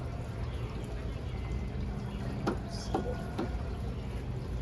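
Water swirling and sloshing as a gold pan is worked in a panning trough, with a few light knocks a little past the middle.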